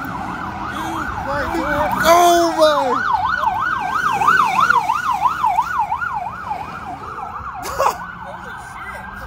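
Police car siren in rapid yelp mode, its pitch swinging up and down about three times a second, loudest in the middle and easing off near the end. A brief noise burst comes about two seconds in, and a sharp knock near the end.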